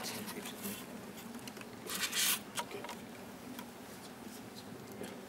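Scratchy rustling and handling noise from a clip-on collar microphone being fitted to a jacket, with one louder, longer rustle about two seconds in.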